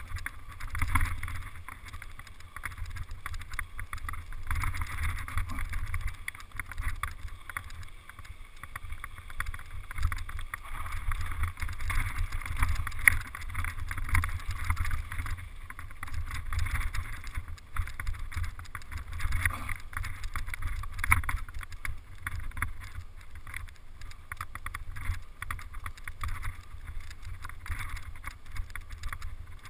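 Mountain bike riding downhill on a rocky gravel trail: tyres on loose stones and the bike rattling over bumps in dense, irregular clicks and knocks, with wind buffeting the camera microphone in a steady low rumble.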